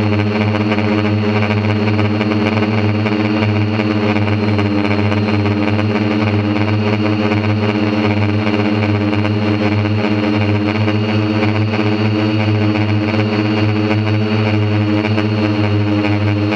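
Quadcopter's electric motors and propellers humming in flight, recorded from on board the craft: a loud, steady low drone with a stack of overtones that holds the same pitch throughout.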